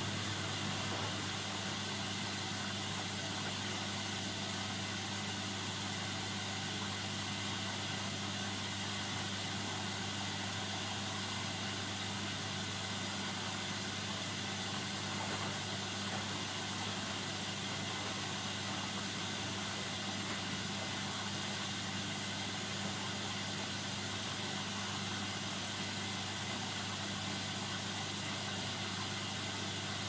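Hoover Dynamic front-loading washing machine in the wash phase of a Delicate 40 cycle, its motor turning the drum of laundry with a steady low hum over a soft hiss.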